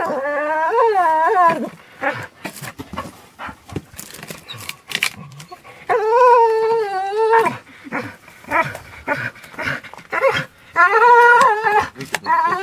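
A dog whining in three long, wavering cries, each over a second long, as it hangs by its jaws from a stick and strains to hold on. Between the cries come sharp scrapes and clicks of its claws scrabbling on rough rock.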